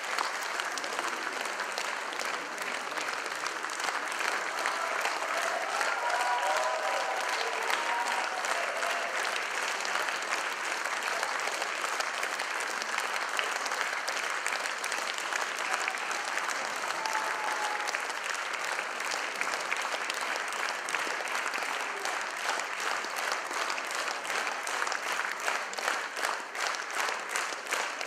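Large theatre audience applauding continuously at an opera curtain call, with a few voices calling out about six seconds in. Near the end the clapping falls into a steady unison beat.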